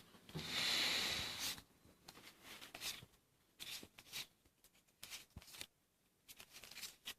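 Trading cards and a foil booster pack being handled. A papery rustle lasts about a second near the start, followed by scattered soft flicks and slides as the cards are paged through one by one.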